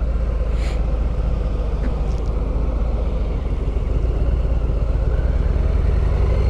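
Harley-Davidson V-twin cruiser engine running steadily while the motorcycle is ridden along, getting slightly louder in the second half.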